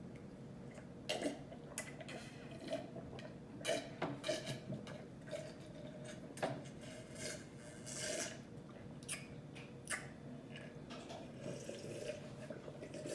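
A person eating close to the microphone: chewing with scattered wet mouth clicks and smacks at irregular intervals.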